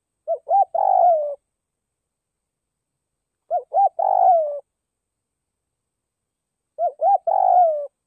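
Spotted dove cooing: three identical phrases about three seconds apart, each two short notes followed by a longer note that falls in pitch. It is a decoy dove's call, the kind used to draw in and provoke wild doves.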